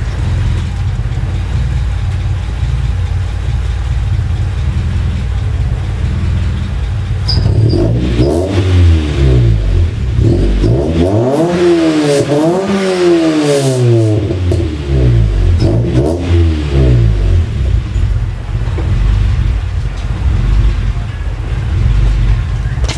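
Honda B20 four-cylinder engine in a Civic, idling low through a branch manifold and a big-box aftermarket exhaust, then revved about five times in a row, the highest rev in the middle, before dropping back to idle. The exhaust sounds quite aggressive.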